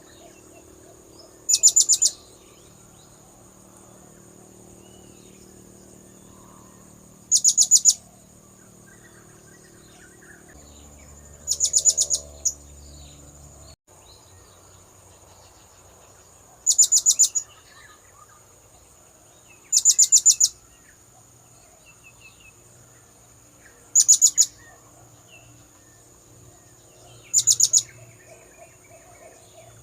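Blue-crowned hanging parrot (serindit) call played as a bird lure: seven short bursts of rapid, very high-pitched chirps, a few seconds apart, over a steady thin high whine.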